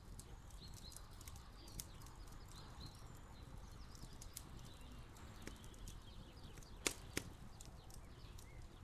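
Soft, scattered clicks and taps from tomato slices being laid over chopped peppers in a metal pan, with two sharper clicks about seven seconds in, over a low steady outdoor rumble.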